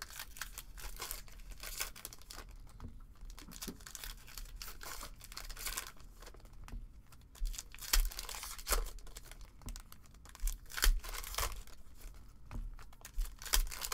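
Foil wrapper of an SP Authentic Golf trading card pack being torn open and crinkled by hand. Sharper rips come here and there, mostly in the second half.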